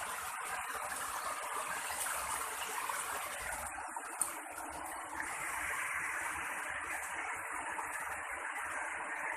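Steady rush of falling water from a waterfall, turning a little brighter about five seconds in.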